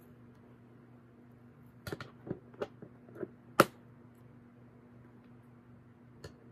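Cardboard packaging being handled: a cluster of sharp taps and clicks starting about two seconds in, the loudest a single sharp click a little after, then one faint click near the end.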